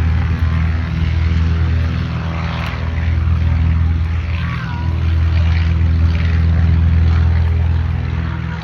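Piston-engine propeller airplanes running with a steady, loud drone.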